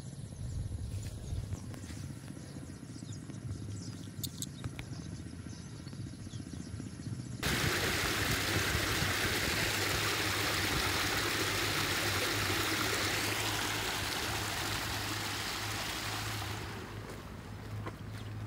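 Water gushing out of a concrete culvert pipe and over its concrete apron: a steady rushing hiss that cuts in abruptly about seven seconds in and falls away near the end. Before it there is only a quiet outdoor background with a low rumble.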